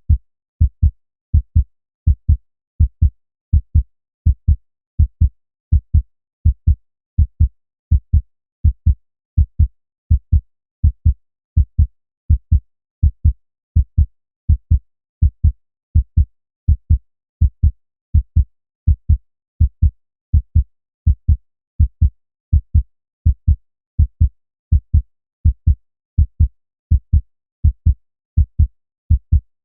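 Human heartbeat: a steady, even lub-dub rhythm of paired low thuds, about one beat a second, with nothing else heard.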